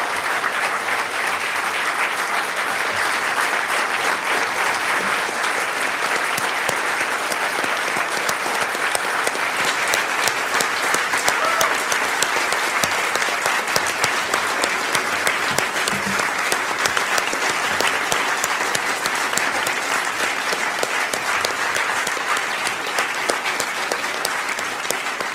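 A large audience giving a long standing ovation: dense, steady clapping throughout, swelling a little midway.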